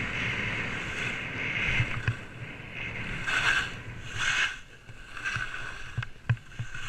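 Skis scraping over packed snow while making turns down a slope, with a steady rush of wind on the camera microphone. Two louder scrapes come about halfway through, and a few sharp knocks near the end.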